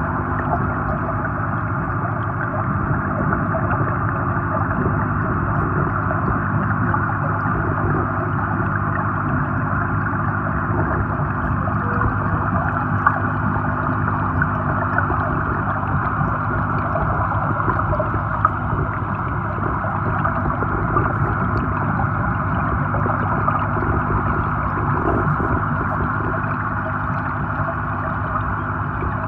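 Steady underwater ambience of a koi pond picked up by a submerged camera: a continuous muffled rushing of water with a low, even hum beneath it.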